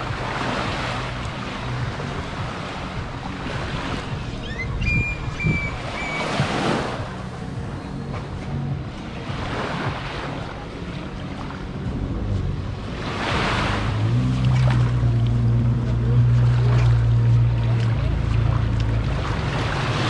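Small waves washing up on a sandy beach, a surge every three seconds or so. About twelve seconds in, an engine's steady low hum comes in and builds until it is the loudest sound.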